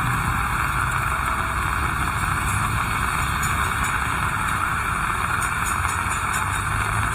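Steady heavy rain, with a low engine rumble of traffic underneath.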